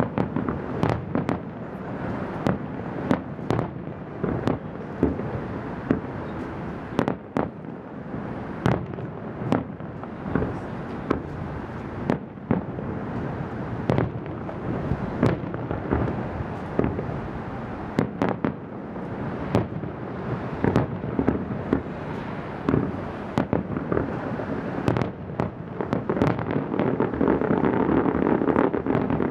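Aerial fireworks display: shells bursting one after another in dozens of sharp bangs over a steady rumble. Near the end the bursts come thicker and the sound swells into a continuous din.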